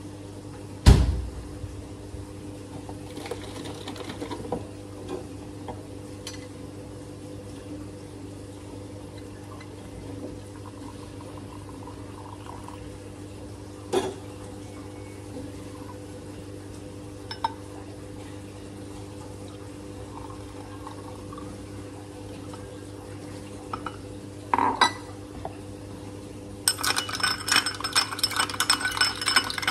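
A spoon stirs ice in a glass of iced coffee near the end, with fast clinking of spoon and ice against the glass. Before that there are a thud and a few sharp clicks of the moka pot and glassware being handled, over a steady low hum.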